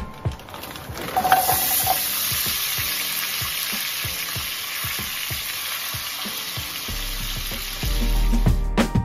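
Meatballs sizzling as they brown in hot oil in a pot, turned now and then with a slotted spoon and tongs. The sizzle swells about a second in and holds steady.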